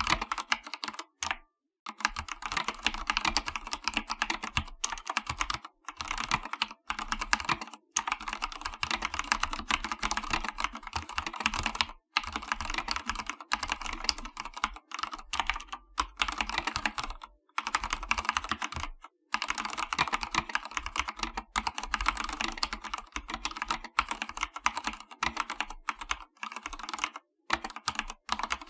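Fast, continuous typing on an Akko 3108 V2 full-size mechanical keyboard with Cherry switches and PBT keycaps. It gives a dense clatter of key presses, broken by brief pauses a few times.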